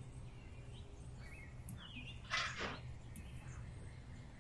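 Quiet outdoor background with a low steady hum and a few faint bird chirps. A short noisy rush comes about halfway through.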